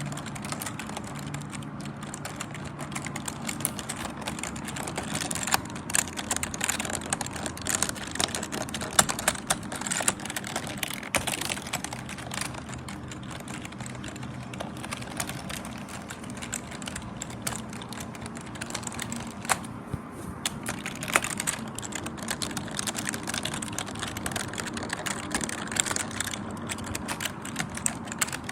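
Computer keyboard being typed on continuously: a dense, rapid patter of key clicks, with a few louder strikes now and then.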